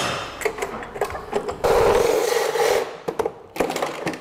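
Power drill running in a burst of about a second, drilling through the snowmobile's tunnel, with scattered knocks and clicks before and after it.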